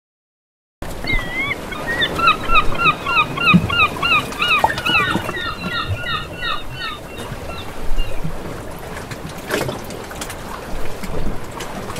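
Outdoor nature ambience: a bird chirping in a quick series of short falling notes, about four a second, for several seconds, over a steady background hiss. A single sharp click comes near the end.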